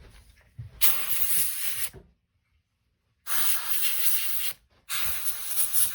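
Aerosol can spraying onto shotgun parts in three hissing bursts of about a second each, likely a penetrating oil or lubricant to free rusted parts; the sound drops out completely for about a second between the first two bursts.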